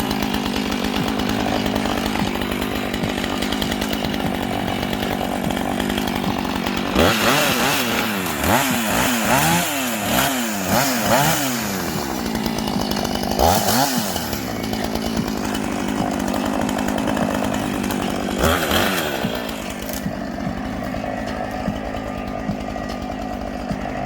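Chainsaw running, its engine revved up and down again and again between about 7 and 12 seconds in and twice more later, then dropping back to a quieter, steadier run about 20 seconds in.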